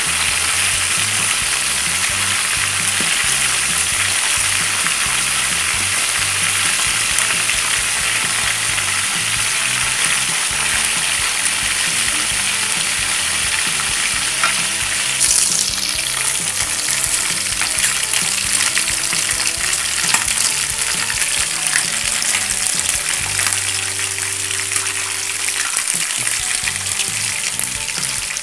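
Chicken pieces deep-frying in hot oil in a wok, giving a steady sizzle and crackle of bubbling oil. The pieces are stirred and turned in the pan.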